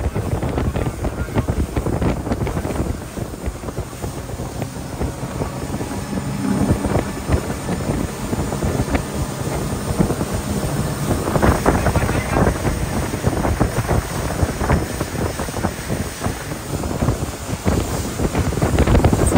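Wind buffeting the microphone on a fast-moving boat, over the rush of its wake and the boat's motor. The gusting gets a little stronger past the middle.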